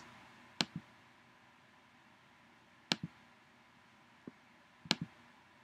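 Three pairs of short, sharp clicks about two seconds apart, plus one faint click: a computer mouse button pressed and released.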